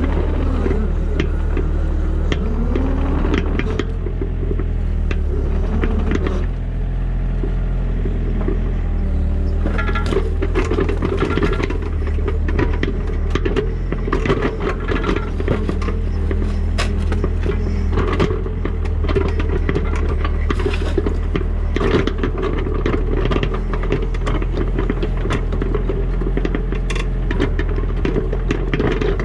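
Diesel engine and hydraulics of a digging machine working under load, the engine pitch rising and falling in the first few seconds, with scraping and clattering throughout.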